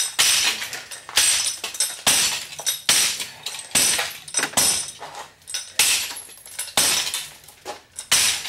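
Repeated smashing of an RCA CRT television's plastic and glass parts: about ten crashes, a little under one a second, each followed by clinking shards.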